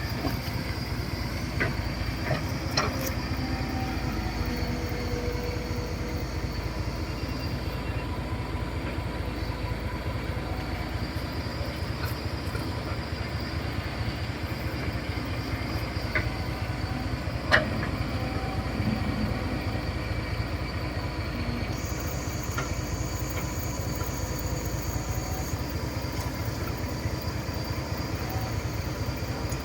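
Caterpillar 312B excavator's diesel engine running steadily, with a few sharp metallic clanks, the loudest a little past halfway.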